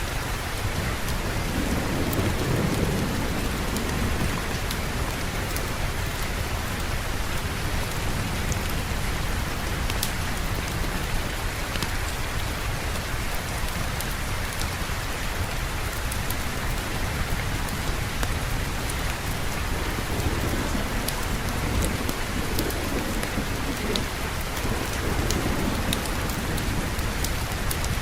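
Steady heavy rain with low rolls of distant thunder, one a couple of seconds in and a longer one near the end, and scattered small sharp ticks through the rain.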